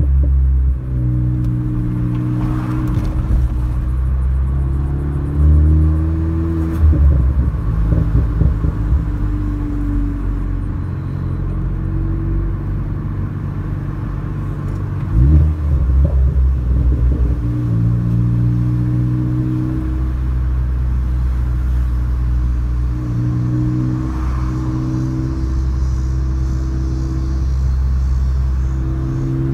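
Ford Focus ST engine and exhaust while driving, with the engine note stepping up and down through steady cruising revs. Bursts of crackling pops come on the overrun, about six seconds in and again about halfway through, from a setup (the 'V4.0') made to crackle.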